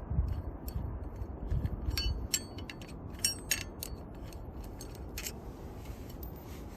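Irregular clicks and clinks of small metal pieces being handled, a few of them ringing briefly, over a low rumble.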